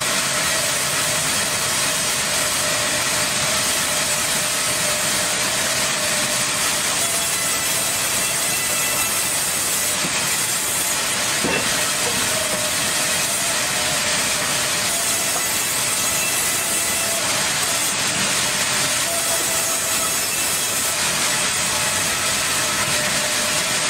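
Large band saw running and ripping through a log: a loud, steady hiss of the blade in the wood, with a faint steady tone over it.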